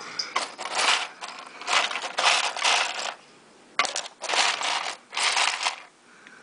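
A hand rummaging in a freezer drawer: plastic frozen-food bags crinkling and ice cubes clinking, in several short bursts.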